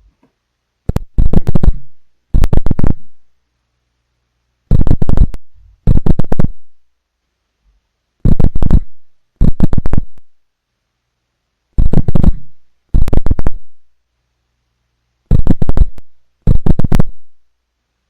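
Refrigerator's strange signal: loud crackling buzz bursts in pairs, each burst under a second long with the second following about a second after the first. The pair repeats five times, roughly every three and a half seconds.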